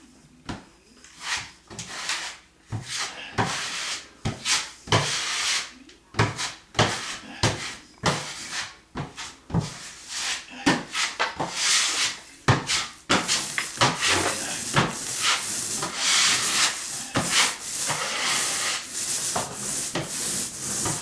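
Drywall knife scraping and spreading setting-type joint compound (Durabond) in repeated strokes, which come quicker in the second half.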